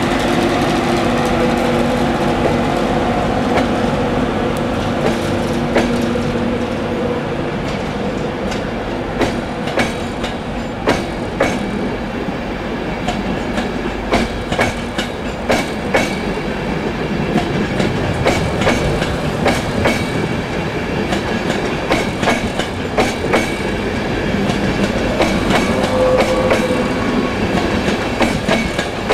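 East Coast Class 91-hauled express passing alongside at speed: continuous wheel and rail rumble of the coaches, with regular clicks, often in pairs, as the wheelsets run over rail joints. A steady hum fades out in the first seven seconds or so.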